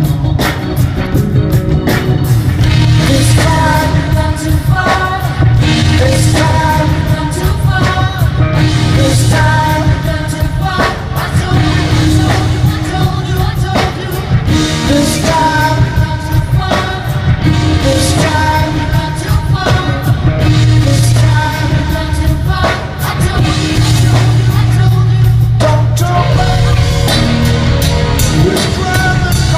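Rock band playing live at a sound check, with a heavy bass line and drums under melodic lines.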